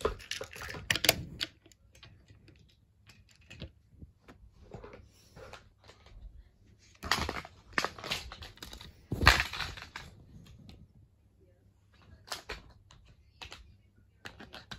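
Irregular clicks and clattering knocks, as of small hard objects being handled. The loudest clusters come at the start, about seven seconds in and about nine seconds in, with scattered quieter clicks between them.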